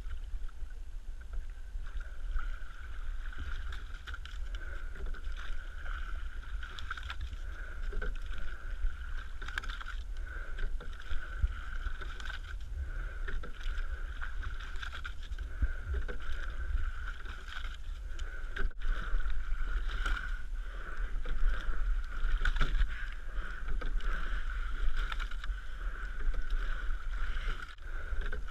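Double scull being rowed: the strokes of the sculling oars come about every two seconds, over a steady low rumble and a steady thin tone.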